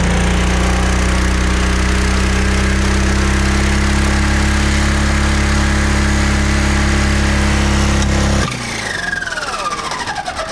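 Lawn mower engine running flat out with its governor disconnected, a loud steady drone. About eight seconds in it suddenly quits and spins down with a falling whine: the connecting rods have broken inside, which the owner takes for both rods broken, leaving zero compression.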